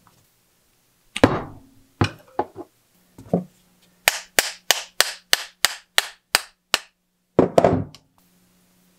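Hand-tool strikes in a bike workshop: several separate knocks, then about ten quick, even taps at roughly three or four a second, then one heavier blow near the end.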